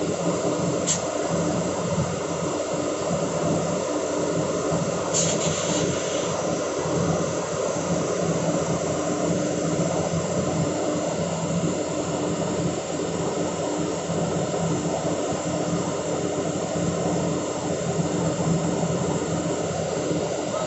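Excavator's diesel engine running at a steady speed, with two brief high-pitched sounds about a second in and about five seconds in.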